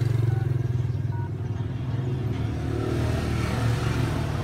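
A steady low engine hum, as of a motor idling, with two short faint keypad beeps in the first second and a half as a phone's dialer is tapped.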